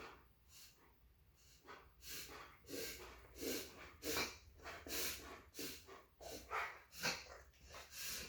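A dog reverse sneezing: a rapid run of noisy pulls of breath through the nose, about one and a half a second, faint at first and louder from about two seconds in.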